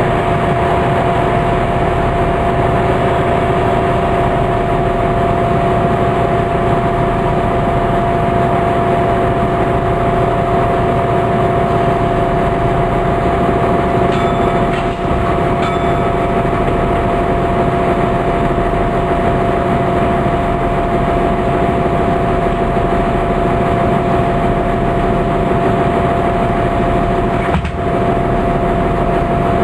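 Interior running noise of a Class 165 diesel multiple unit: the underfloor diesel engine and transmission drone steadily with a constant whine and rumble, with no change in speed. Two brief high beeps sound about halfway through.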